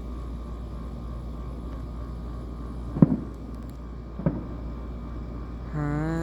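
Distant fireworks going off: two sharp bangs a little over a second apart, over a steady low rumble. Near the end, a drawn-out voice comes in.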